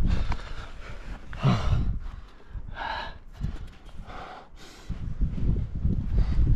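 A climber breathing hard, with several sharp gasps and exhalations as he pulls through a crack. Low rumbling on the body-mounted microphone runs under it.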